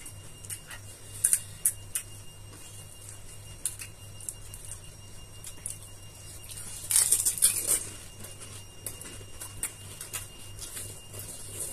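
Scattered small crisp cracks and crunches of hollow fried pani puri shells being poked open with fingers and bitten, with a denser stretch of crackling about seven seconds in. A steady low hum runs underneath.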